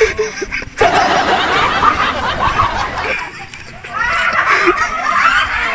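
Laughter and excited voices in two loud spells, with a short lull in between.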